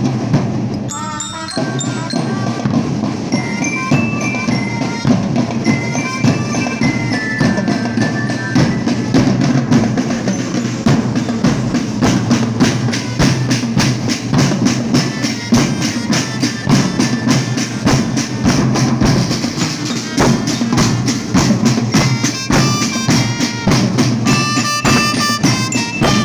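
Marching drum band playing: bass drums and snare drums beat out a dense, steady rhythm, and near the end bell lyres join with a ringing melody.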